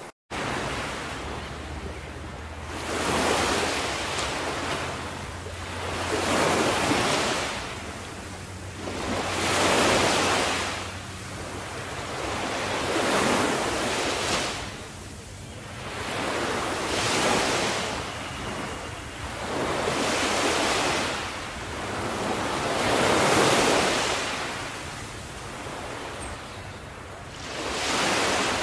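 Small waves washing onto a beach. The surf swells and fades about every three seconds, with a faint low hum underneath in the first half.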